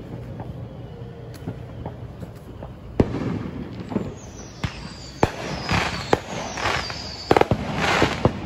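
Fireworks going off: a string of sharp bangs with crackling bursts, beginning about three seconds in. A whistle falls in pitch through the middle, and a quick run of bangs comes near the end.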